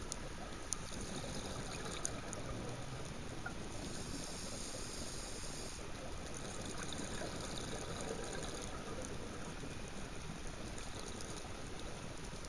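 Underwater reef ambience heard through a camera housing: a steady muffled hiss with a few sharp clicks in the first two seconds, and two longer stretches of bubbling from a scuba diver's exhaled regulator bubbles, about five seconds apart.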